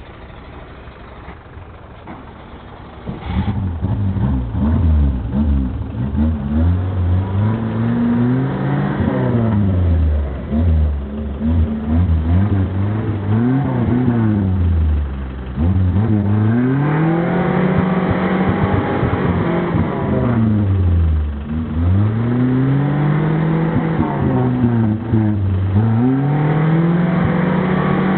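Suzuki SJ 4x4 engines revving hard under load again and again, the pitch climbing and dropping every couple of seconds, as one vehicle tows the other out of deep mud on a strap. The revving starts about three seconds in.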